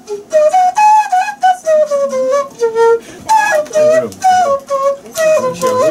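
Flute-like tune of short, separate notes, about three a second, played in phrases that step down in pitch and then start again higher.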